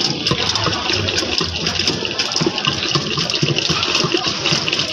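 Lassi being churned by hand with a wooden stick in a metal pot: frothy yogurt sloshing and splashing, with rapid knocks of the wood against the pot.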